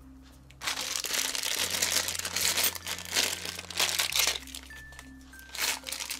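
Rustling, crinkling handling noise as a handful of 50p coins is picked up and shuffled by hand, with a longer stretch of about three seconds and a shorter burst near the end. Light background music plays throughout.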